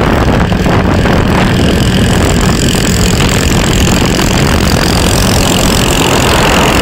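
Stand-up jet ski and the boat following it running at speed on the water: a loud, steady engine drone mixed with rushing noise.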